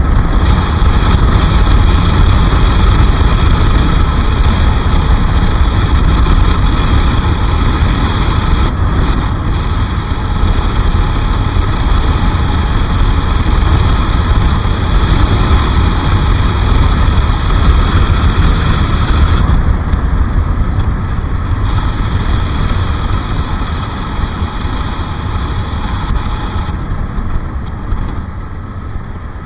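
Bajaj Pulsar RS 200's single-cylinder engine running steadily under way, with a heavy low rumble of wind on the microphone; the higher engine tones drop away briefly twice and the sound eases a little near the end.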